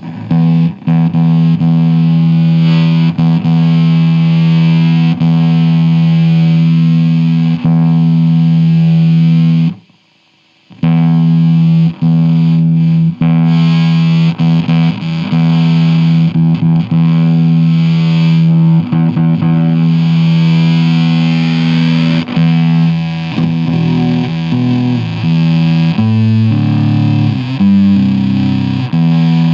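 Electric guitar played through a breadboarded prototype fuzz pedal and guitar amp, set up to sound like a bass: a heavily distorted low note held for a long time. The note cuts out for about a second near ten seconds in, its fuzz texture shifts as the pedal's knobs are turned, and several quick changes of note come near the end.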